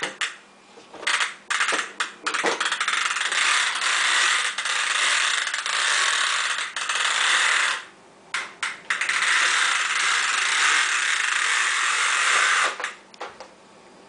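Vacuum cleaner running in stops and starts: a few short bursts, then two long stretches of several seconds each, cutting off sharply about a second before the end.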